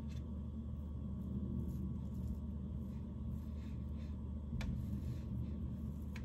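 Steady low hum, with two faint clicks, one about four and a half seconds in and one near the end.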